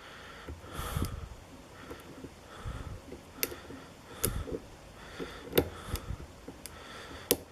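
Lock pick working the pins of a pin-tumbler lock held under tension: light metal scraping with irregular small sharp clicks, the strongest about three and a half, four, five and a half, and seven seconds in.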